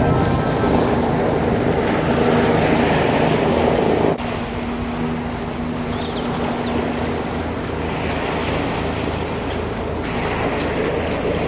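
Coast Guard helicopter's steady engine and rotor drone as it lifts off and climbs away across the water, mixed with wind on the microphone and lapping waves.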